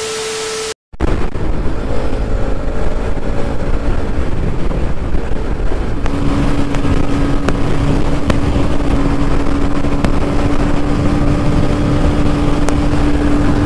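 A short burst of TV-static glitch noise with a steady beep, a brief cut, then wind rushing over a helmet-mounted camera microphone as a Bajaj Pulsar NS200's single-cylinder engine runs steadily at highway cruising speed.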